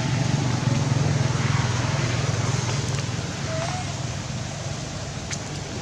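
A motor's low steady hum that slowly fades away, with a faint short squeak partway through.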